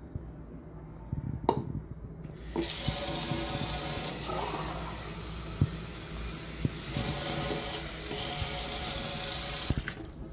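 Kitchen tap running water into a plastic measuring jug, starting a couple of seconds in with a click, easing off briefly midway, then turned off shortly before the end.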